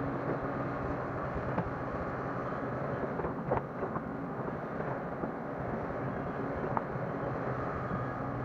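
Hyundai 180 hydraulic excavator's diesel engine running steadily under working load as the machine swings and dumps a bucket of soil, with a few short knocks about three and a half seconds in.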